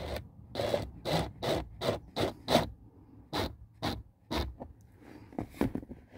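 Cordless drill-driver running a self-tapping screw through a steel mounting bracket into the dash panel, in a string of short trigger bursts about two to three a second with a brief pause partway through, the screw scraping as it bites; the last bursts are weaker as the screw seats tight.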